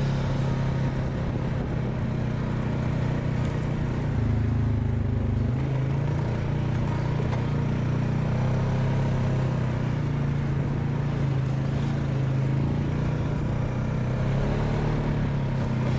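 ATV engine running steadily under way, its note shifting briefly about four seconds in.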